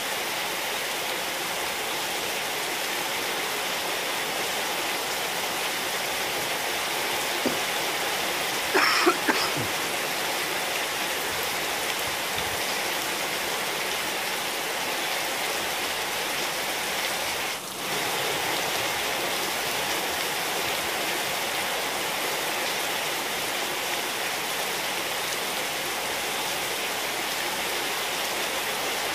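Steady rain falling on a wet tiled courtyard and potted plants, an even, constant hiss. About nine seconds in, a few brief sharper sounds rise above it.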